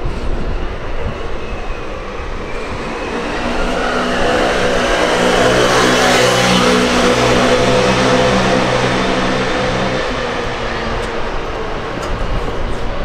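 A motor vehicle passing close by. Its engine hum and road noise swell, are loudest about halfway through, then fade away.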